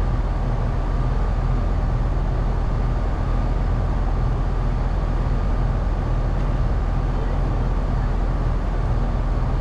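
An engine running steadily: a low, even drone with a faint steady whine above it.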